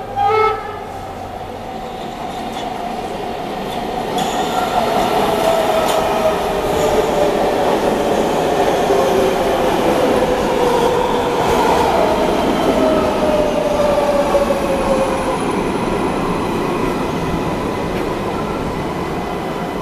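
MARTA rapid-transit train pulling into a platform and braking to a stop. It opens with two short horn blasts, then the rolling noise of the cars grows as they come in. A motor whine falls steadily in pitch as the train slows.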